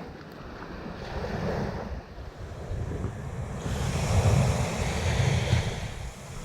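Surf breaking and washing up a sandy beach, with wind buffeting the microphone. A wave's wash swells louder and hissier a little past halfway through.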